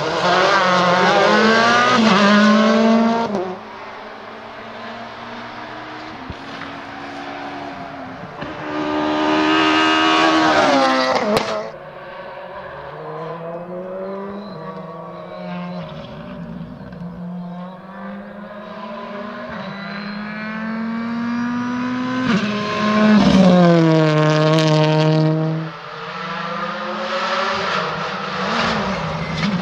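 Rally cars at full stage speed, engines revving hard and shifting up and down through the gears. There are three loud, close passes: at the start, about nine seconds in, and about twenty-two seconds in. Quieter engine running lies between them, and each loud pass breaks off sharply.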